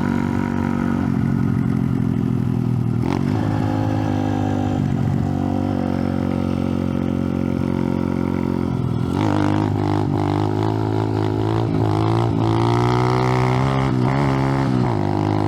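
125cc Icebear Champion mini bike's four-stroke single-cylinder engine running while being ridden, fairly steady at first with brief dips a few seconds in. From about nine seconds in it is revved up and down repeatedly, the pitch rising and falling.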